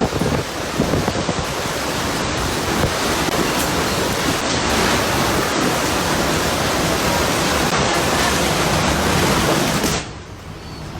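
Loud, steady rush of storm wind and heavy rain on the microphone, dropping off suddenly near the end.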